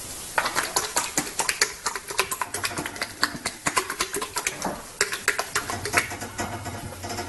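A rapid, irregular run of sharp clicks and taps, several a second, starting about half a second in and thinning out near the end.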